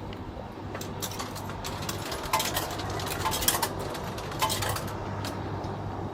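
Vending machine humming steadily, with a run of sharp metallic clinks and clicks in the middle.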